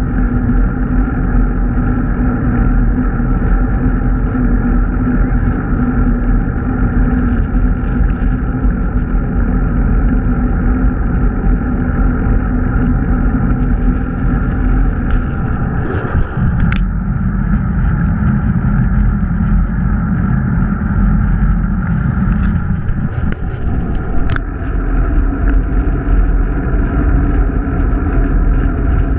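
Steady rush of wind and road noise on a bicycle-mounted GoPro while riding along a paved road, with a few sharp clicks past the middle.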